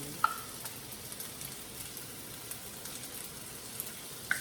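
Pasta with shrimp and ginger scallion sauce sizzling steadily in a frying pan. A utensil clinks sharply against the pan about a quarter second in and again near the end.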